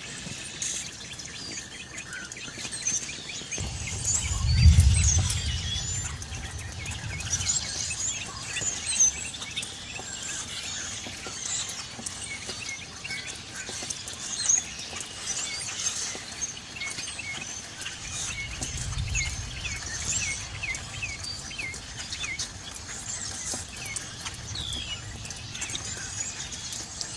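A mixed flock of songbirds, including red-winged blackbirds, robins and starlings, chirping and calling continuously. A low rumble of distant thunder swells about four seconds in, the loudest moment, and comes again more faintly around the middle and near the end.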